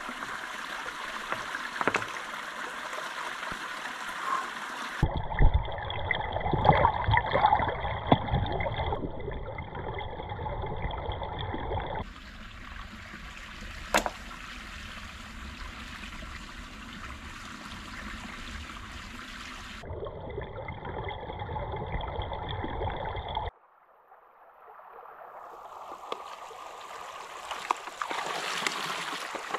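Shallow forest stream running and trickling over rocks, across several cut-together shots, with a few sharp knocks. The water sound drops away briefly about three-quarters through and fades back in.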